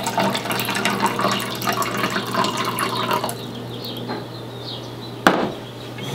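Water poured from a plastic measuring jug into a toy blender's plastic jar, splashing and trickling until it stops about three seconds in. A single sharp knock follows near the end as the jug is set down on the table.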